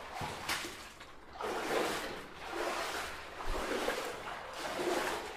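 Water sloshing and splashing in irregular surges as people wade through a flooded mine tunnel.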